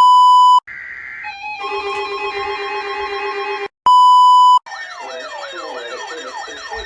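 A loud steady electronic beep, then a short electronic tune with stepped notes, then a second identical beep. After that come several overlapping warbling siren tones that rise and fall about three times a second.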